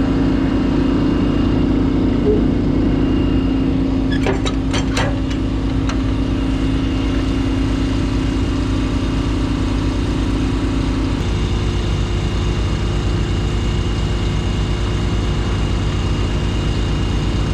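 A Western Star semi truck's diesel engine idling steadily, with a steady hum that stops about eleven seconds in. A few sharp clicks come about four to five seconds in.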